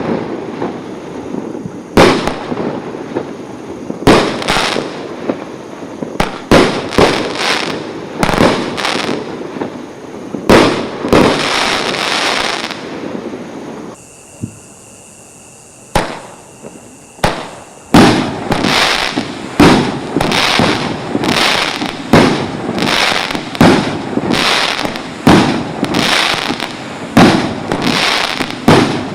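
Multi-shot consumer fireworks batteries (16 to 19 shots each) firing shot after shot, sharp bangs about one a second or faster, each trailing a crackle. About fourteen seconds in the firing stops for a few seconds apart from two single shots, then the rapid salvo resumes.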